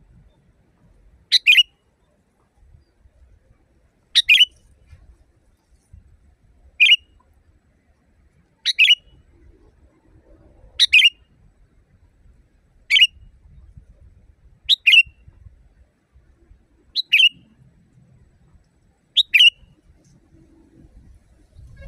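Sooty-headed bulbul (kutilang) calling: a short, sharp double-noted call repeated about every two seconds, nine times.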